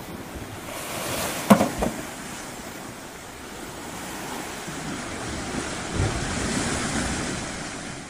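Sea waves washing onto a shore, the surge swelling and ebbing, with one short sharp knock about a second and a half in.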